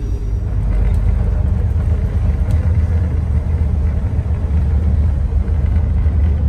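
Steady low rumble of a moving passenger sleeping car heard from inside: the train running on its rails, with a few faint clicks.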